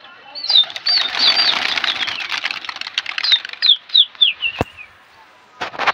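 A large flock of domestic pigeons taking off together, a dense clatter of flapping wings that starts about half a second in and thins out after a few seconds. A run of short, high chirps sounds over it.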